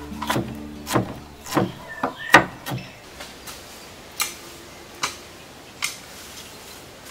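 Large kitchen knife chopping red onion on a wooden cutting board, quick strokes about two a second, over background music that stops about two seconds in. A few sparser knocks follow, about one a second.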